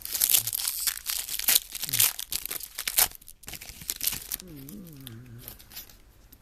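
Trading card pack wrapper being torn open and crinkled, with a dense run of quick rips and rustles over about the first three seconds and quieter handling after that.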